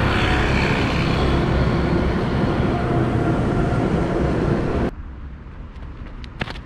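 Loud, steady wind and road noise on a camera microphone moving along a street, with a tram going by. It cuts off sharply about five seconds in to quieter outdoor ambience with a few footsteps on concrete.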